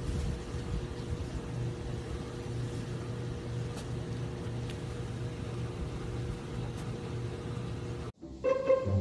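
Steady low mechanical hum with a faint hiss, like an appliance or fan running. It cuts off suddenly about eight seconds in, and plucked-string music starts just after.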